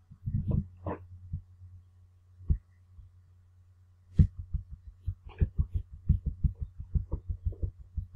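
Computer mouse clicking over a steady low electrical hum. A few clicks come in the first second, then a quick, even run of clicks, about four a second, starts about four seconds in, as the scrollbar arrow is clicked repeatedly.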